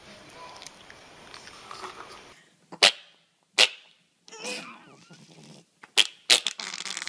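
Pomeranian making four short, sharp sneeze-like bursts, spaced unevenly, with a short wavering squeak between the second and third. The first two seconds are quiet.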